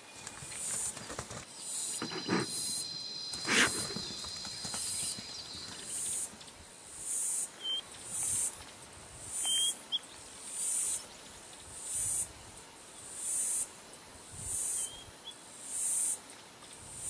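An insect calling in regular high-pitched pulses, about one every second and a half, with a few short bird chirps. A couple of loud short sounds come about two and three and a half seconds in.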